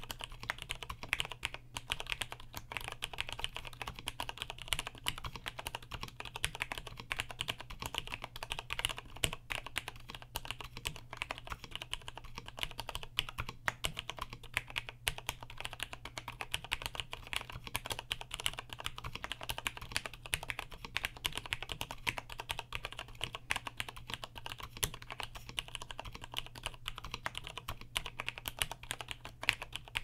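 Rapid, continuous typing on a 1993 Cherry G80-11800 keyboard with lubed Cherry MX Brown tactile switches and lubed, clipped stabilizers. The keycaps are vintage PBT caps from an Olympia electronic typewriter, which give a bassier keystroke sound.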